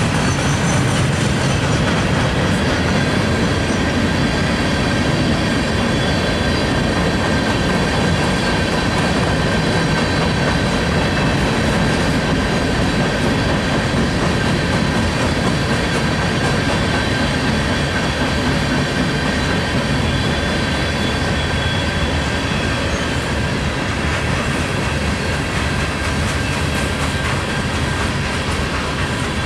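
Freight train cars (covered hoppers and tank cars) rolling steadily past, their steel wheels running on the rails, with a steady high-pitched tone over the rumble.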